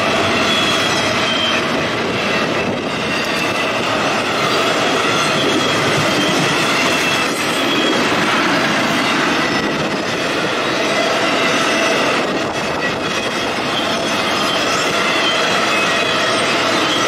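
Double-stack intermodal container cars of a freight train rolling past at speed: a continuous rumble and rattle of steel wheels on rail, with a high-pitched wheel squeal coming and going.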